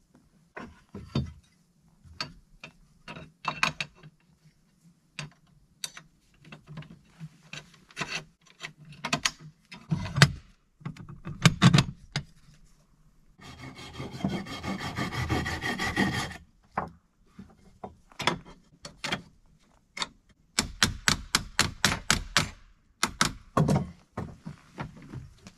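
Doors and latches of an old cast iron stove being worked by hand: a run of metal clicks and clanks, with a scraping rub lasting about three seconds midway and a quick series of clicks near the end.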